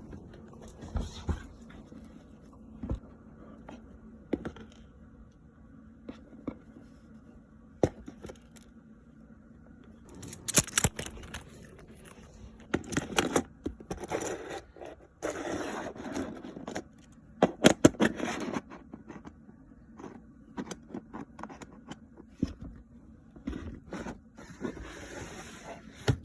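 Fidget toys and small plastic items being handled and sorted: scattered clicks and light knocks, with several bursts of scraping and rustling, the loudest in the middle stretch.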